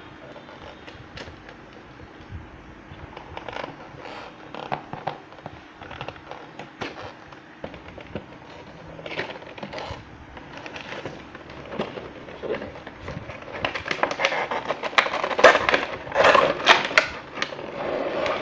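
Cardboard toy box being opened by hand: tape and a sticker peeled off, flaps pulled open, with scattered clicks, taps and scrapes of cardboard. The handling grows louder and busier in the last few seconds as the inner box is slid out.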